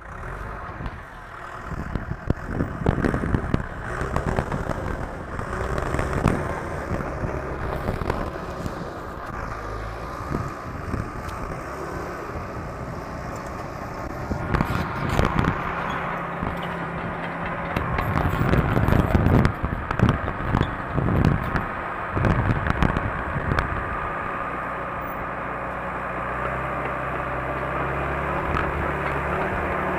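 Bulldozer's diesel engine working under load as it pushes and cuts soil, with repeated clattering and scraping. Over the last several seconds the engine settles into a steadier hum.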